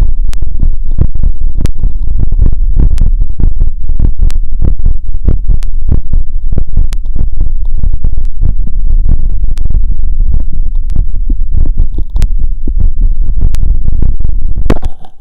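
Fast heartbeat heard through a wired stethoscope chestpiece, loud low thumps in quick even succession; the heart is racing after a 2 km run. The beating cuts off shortly before the end.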